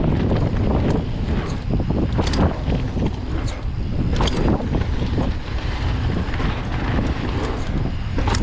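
Wind buffeting the microphone while a mountain bike rolls down a dirt trail, its tyres rumbling, with scattered sharp clicks and rattles from the bike over bumps.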